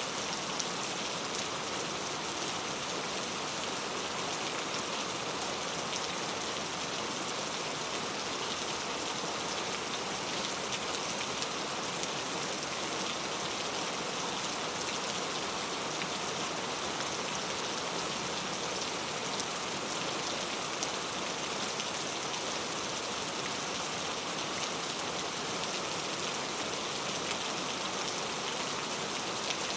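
Steady rain falling into a puddle: a dense, even patter of drops that holds unchanged throughout.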